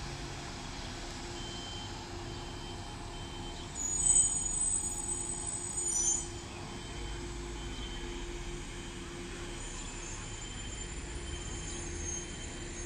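Bus station ambience: bus engines idling with a steady hum, while a high warning beep repeats about once a second. A high-pitched squeal, like a bus's brakes, sounds for about two seconds about a third of the way in.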